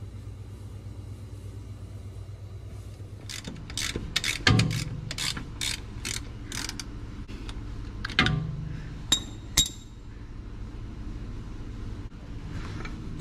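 Ratchet wrench clicking in a run of short strokes, about three a second, as it loosens the oil filter housing cap on a Porsche 986 Boxster, followed by a knock and two sharp metallic clinks.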